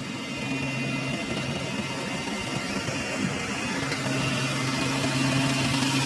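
Kubota crawler rice combine harvester running, a steady engine and machinery hum that grows louder as the machine comes closer.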